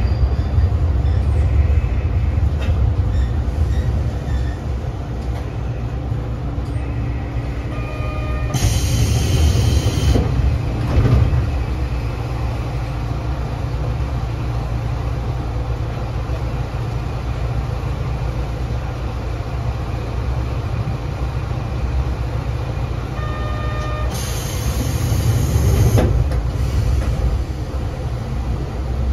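Hitachinaka Seaside Railway KiHa 3710 diesel railcar under way: a steady low rumble of engine and wheels on the rails. Twice, about nine seconds in and near the end, a short burst of brighter hiss with a few steady tones rises over it.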